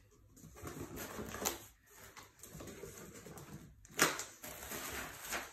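Cardboard shipping box being opened by hand: flaps scraping and plastic air-pillow packing rustling, with a louder rustle about four seconds in.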